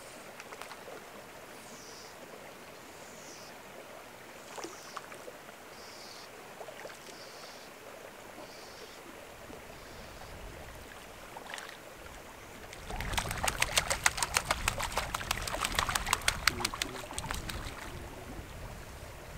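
A hooked brook trout splashing and thrashing at the lake surface for about four seconds as it is brought in, starting about 13 seconds in. Before that a small bird repeats a short falling chirp about once a second, over a faint steady wash of running water.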